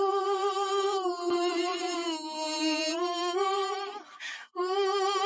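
A solo singing voice holds a long wordless note with vibrato, with little or no accompaniment. It breaks off for a breath about four seconds in, then takes up another held note.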